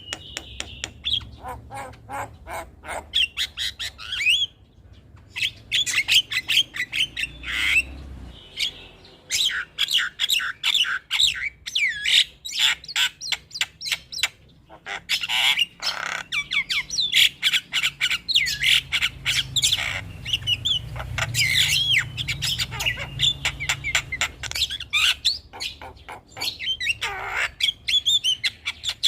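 Javan mynas calling: fast harsh chattering and squawks mixed with whistled, sliding notes, with brief pauses about four and a half and fourteen seconds in.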